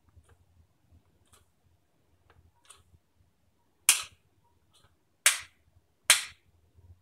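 Three loud, sharp snaps over about two seconds, from a hand handling a small 12 V DC computer fan, with fainter clicks between.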